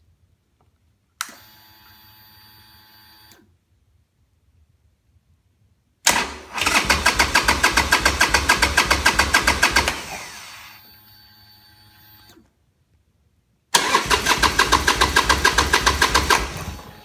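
2010 Harley-Davidson Sportster Forty-Eight's 1200 cc V-twin cranking on the electric starter in two long tries, a fast even chugging that never catches: the bike won't start. A brief steady electric whir comes first, about a second in.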